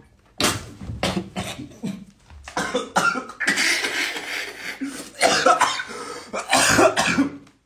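A man in a fit of hard laughter, coughing, in a string of breathy bursts that begin about half a second in and go on for several seconds.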